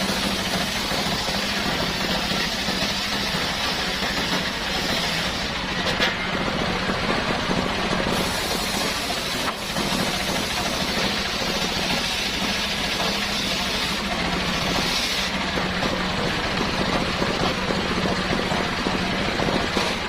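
Homemade circular saw rig running steadily while sawing salam wood, a continuous machine drone with the cutting noise on top. The sound shifts a little around a quarter of the way in and again about three quarters through.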